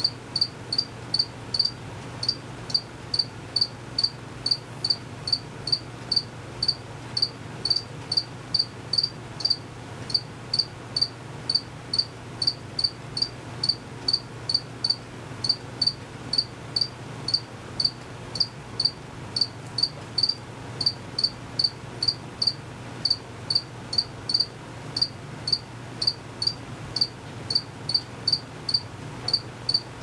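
A male cricket chirping steadily with short, high chirps at about two to three a second, made by rubbing its wings together.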